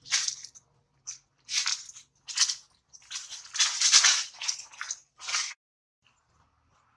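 Dry leaf litter crunching and rustling in a run of short, irregular bursts that stop about five and a half seconds in.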